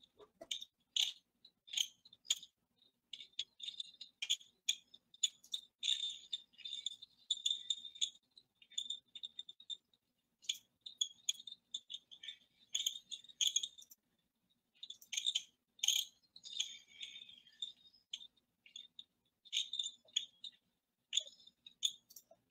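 Light, irregular clicking and rattling in quick clusters, high-pitched and thin, over a faint steady hum.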